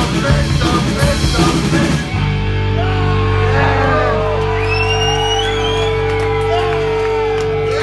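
Live punk rock band playing loud with electric guitars, bass and drums; about two seconds in the drums stop and a held chord rings on from the amplifiers while voices yell and whoop over it, as the song ends.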